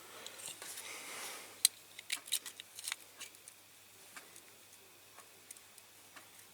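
A brief soft rustle, then a handful of sharp light clicks and taps as a small screwdriver and hand tools are handled against a die-cast metal model, fading to faint scattered ticks.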